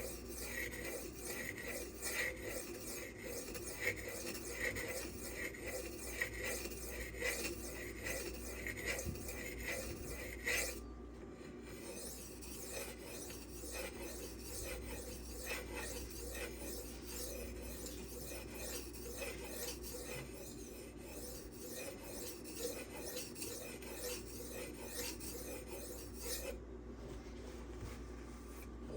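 M390 steel knife blade stroked back and forth on a 2500 grit silicon carbide sharpening stone, a steady rasp in repeated strokes. The strokes turn lighter about eleven seconds in and stop near the end.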